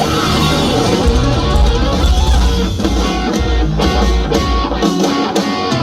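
Live rock band playing an instrumental passage, with electric guitars to the fore over bass and drum kit, heard loud and dense as recorded from the crowd.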